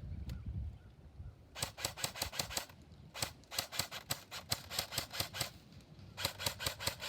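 Airsoft gun firing in three rapid bursts of sharp clicking shots, about ten a second, with short gaps between the bursts.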